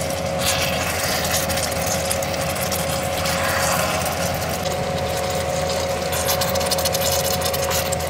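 Steady mechanical hum with a rushing hiss and two faint, steady high whining tones.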